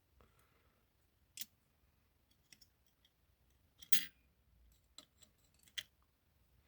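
Scattered small metallic clicks and ticks from lever-lock parts being handled, the loudest about four seconds in.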